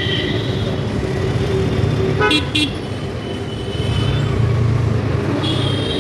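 Road traffic with vehicle horns honking: a few short beeps a little over two seconds in and a longer steady horn from near the end, over a continuous low rumble of engines and road noise.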